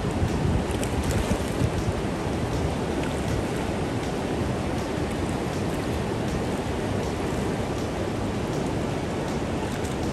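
Keshena Falls' whitewater rapids rushing steadily at high water, a constant roar of falling water.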